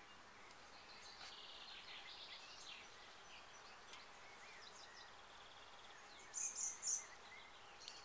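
Small birds chirping and trilling over faint outdoor background noise, with three short, louder, high chirps about six and a half seconds in.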